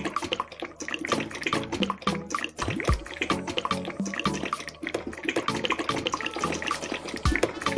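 Background music with a steady beat over the sound of liquid running and splashing down a small chute.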